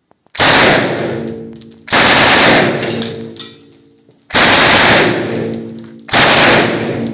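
Real rifle fire on a shooting range: four loud blasts, one to two and a half seconds apart, each holding briefly and then ringing away.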